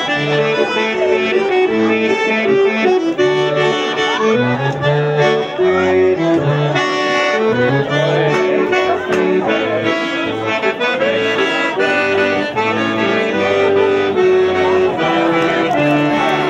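Accordion playing a lively traditional tune, the melody and chords carried over a regular pattern of bass notes.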